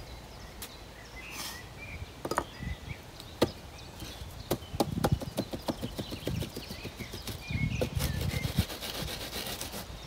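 Wooden boards knocking and scraping against a plywood concrete form: scattered knocks, then a run of quick clicks about halfway through, and rapid back-and-forth rubbing near the end.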